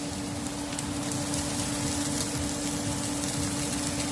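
Baby trumpet mushrooms sizzling steadily in a very hot pan as they sear, with faint crackles over a constant low hum.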